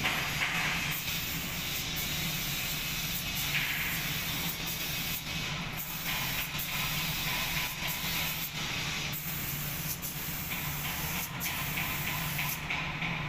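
Compressed-air paint spray gun hissing, with brief breaks in the hiss and a drop near the end, over a steady low hum.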